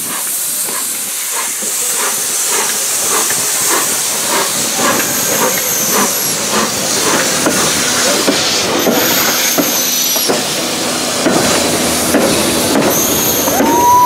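Steam locomotive 231G558, a Pacific, moving slowly past with a loud, steady hiss of escaping steam and regular exhaust chuffs about two to three a second. Just at the end a single held whistle note begins.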